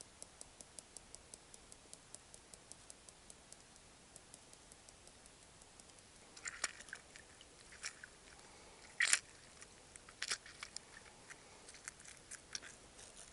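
Faint food-preparation handling sounds as seasoning is shaken over avocado halves and a lemon half is squeezed over a metal cup: short crackling, crunchy bursts and small knocks, the loudest about nine seconds in. Under them runs a faint regular ticking, about three times a second, in the first half.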